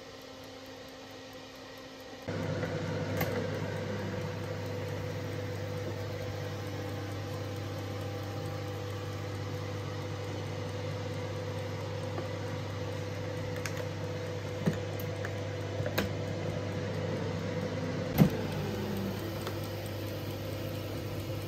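Air fryer switching on about two seconds in, its fan motor then running with a steady hum. A few light clicks and knocks sound over it, the sharpest one near the end.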